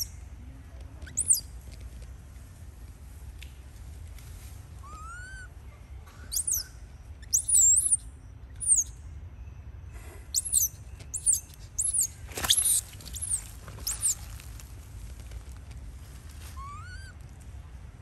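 A run of short, high-pitched chirping calls, most of them quick sweeps up or down in pitch, bunched together in the middle. A lower call rising in pitch sounds twice, a few seconds in and near the end.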